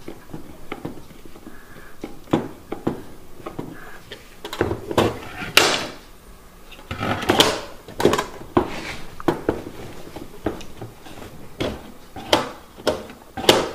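Scattered clicks, knocks and clunks from a tin lunch box being worked on by hand: a screwdriver on its metal lid, wooden blocks set down inside it, and the hinged tin lid swung open and shut.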